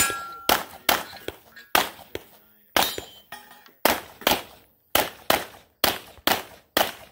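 Handgun fired rapidly through a USPSA course of fire, about fifteen shots in quick strings with a pause of about a second midway, the steel targets ringing after some hits.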